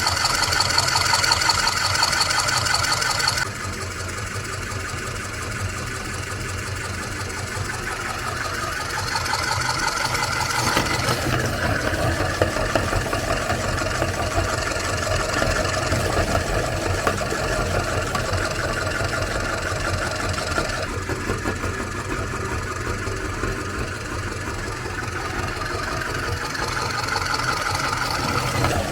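Meat grinder motor running steadily, grinding cookies. It drops sharply in level a few seconds in, and its tone shifts abruptly twice later on.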